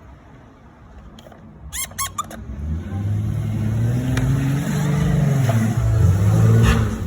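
A few quick squeaks about two seconds in. Then a motor vehicle engine runs, its pitch wavering as it grows louder over the last few seconds.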